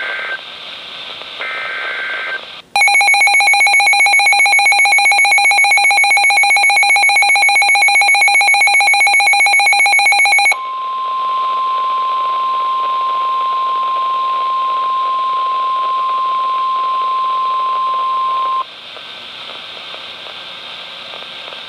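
Weather radio alert signalling: two short, screechy SAME data bursts, then a loud, rapidly pulsing electronic alarm for about eight seconds, then the steady 1050 Hz weather-radio warning alarm tone held for about eight seconds, leaving a low radio hiss.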